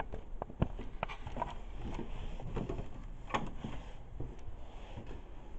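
Footsteps and hand-held camera handling noise: irregular soft knocks and clicks, with a sharper knock about half a second in and another just past three seconds.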